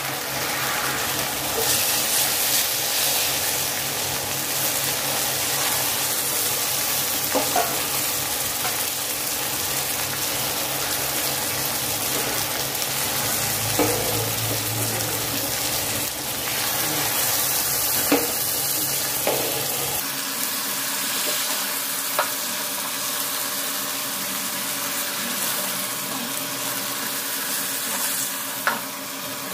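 Marinated fish pieces sizzling as they fry in masala in a non-stick pan, a steady sizzle. A few short clicks of a steel spoon against the pan and plate come through it as the pieces are lifted out.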